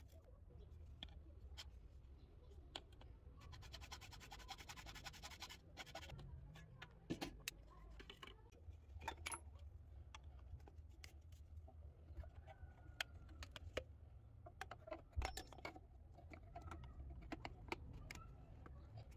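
Grey PVC drain pipe and fittings being handled and pushed together under a washbasin: light plastic clicks and knocks, with a run of rapid rattling clicks about four seconds in.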